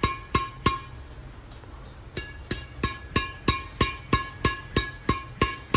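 Felet Light Tech T3 badminton racket, strung with an imitation Yonex BG66 Ultimax at 28 lbs, struck repeatedly against the palm. Its string bed gives about three sharp, fairly ringing pings a second, with a pause of about a second near the start.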